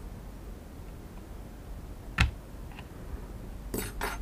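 Small clicks and scrapes of a drone remote controller's opened plastic shell and small hand tools being handled: one sharp click about two seconds in, a fainter tick just after, then two short scraping rustles near the end.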